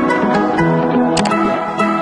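Background music: a melody of short, stepped notes over a light, regular beat.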